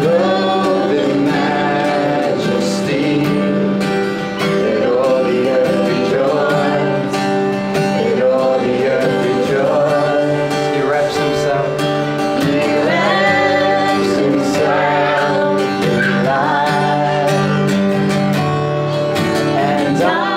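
Worship song: a man and a woman singing to a strummed acoustic guitar.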